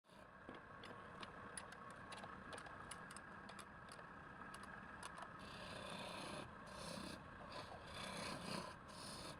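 Wood lathe running with a steady hum while a turning tool scrapes against the spinning wood: a run of small ticks in the first few seconds, then repeated bursts of scraping from about halfway through.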